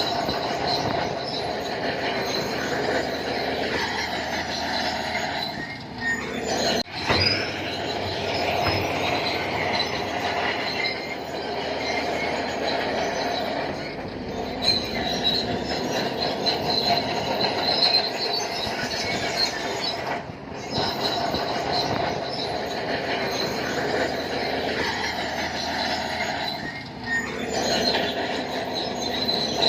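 Bulldozer at work, its diesel engine running under load while the steel crawler tracks squeal and clank steadily. The sound drops out briefly a few times.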